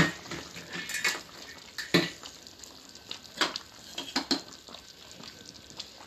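Metal cooking pot being handled: several scattered sharp clinks and knocks of metal on metal, the loudest about two seconds in.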